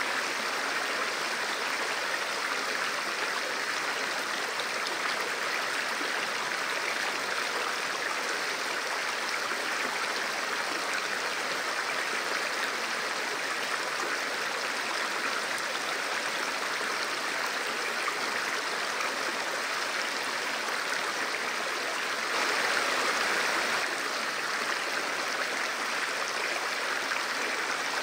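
Fast mountain river rushing steadily through a stone-walled channel and pouring over a low weir, an even roar of white water that swells briefly about three-quarters of the way through.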